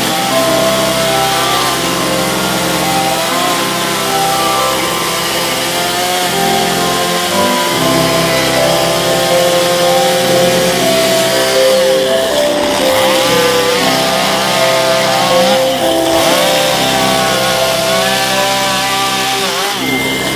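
Two-stroke Stihl chainsaw cutting through a Western Red Cedar slab. Its engine note drops and picks up a few times as the cuts change, over background music.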